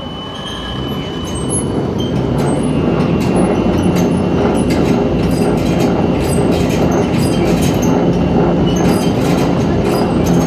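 Electric overhead travelling crane's main hoist drum running with an abnormal noise: a loud rumbling drone with a steady high whine and rapid, irregular clicks and knocks. It builds up over the first two seconds or so, then holds steady.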